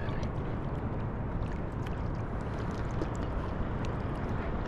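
Seawater lapping and sloshing against a surfboard floating in the surf, a steady wash with small splashes, and wind on the microphone.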